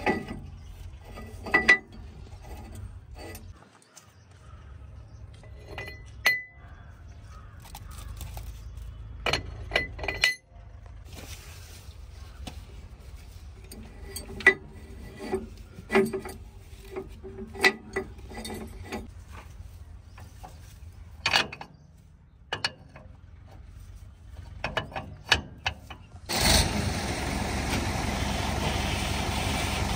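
Scattered sharp clinks and knocks, one after another with short gaps. About 26 seconds in, a loud, steady engine noise cuts in abruptly.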